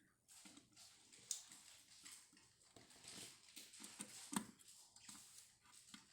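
Faint, scattered small clicks and light knocks, with a sharper knock about four seconds in.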